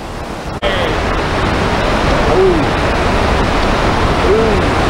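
Steady roar of whitewater pouring down a steep granite slide rapid, the Oceana rapid on the Tallulah River. It comes in louder after a cut about half a second in.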